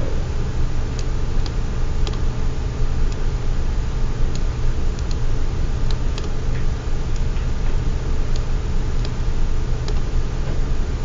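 Computer mouse clicking at irregular intervals over a steady low hum.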